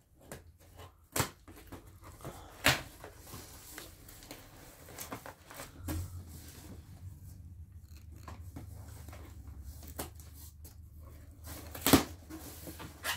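A cardboard shipping box being opened by hand: packing tape torn and flaps pulled apart, giving a few sharp rips with scratchy rustling in between. The loudest rip comes near the end.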